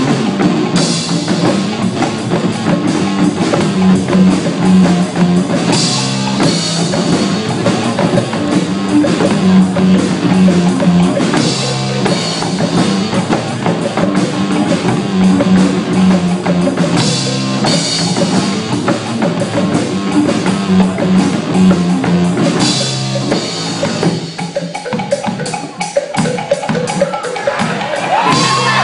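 Live band of drum kit, bongos, woodblocks and guitar playing a steady rhythmic groove, with a loud accent every five to six seconds. The playing thins out and drops back about four seconds from the end.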